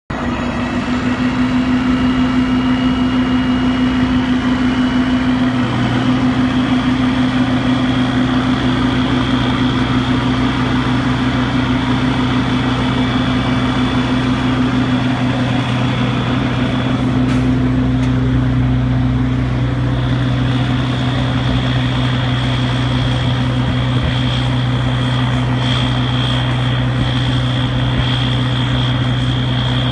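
RTR40 rotator wrecker's engine running steadily under load with a thin high whine above it as the boom works, shifting slightly in pitch a few times.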